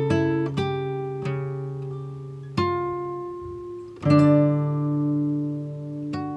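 Background music: slow, sparse plucked guitar notes and chords, each left to ring and fade, with a fuller, louder chord about four seconds in.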